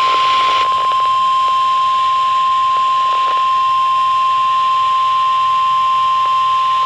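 NOAA Weather Radio alert tone: one loud, steady, high-pitched tone held for about seven seconds that announces an incoming severe thunderstorm warning, over faint radio static.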